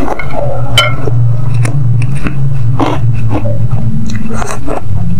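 Close-up chewing of spicy instant noodles in soup, with frequent wet mouth clicks and smacks over a steady low hum.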